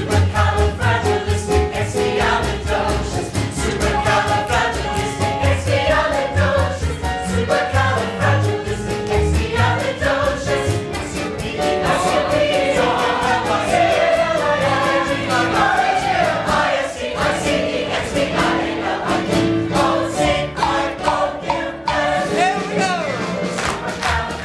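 Stage musical cast singing together in chorus over an instrumental accompaniment with moving bass notes.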